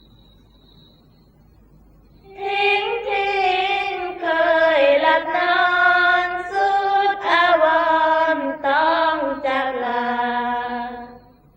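A woman's voice singing one long drawn-out, ornamented phrase of Isan sorapanya chant without instruments. It starts about two seconds in, winds its way slowly downward in pitch, and stops shortly before the end.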